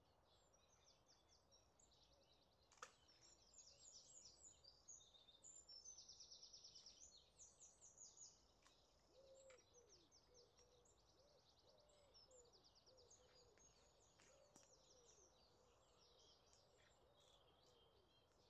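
Faint songbird song: rapid trilling and chirping phrases, busiest in the first half, with a run of lower, drawn-out calls in the second half. A single sharp click about three seconds in.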